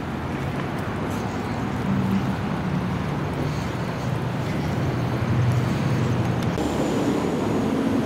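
Motor vehicle passing: a low engine drone over road noise, building to its loudest about five to six seconds in.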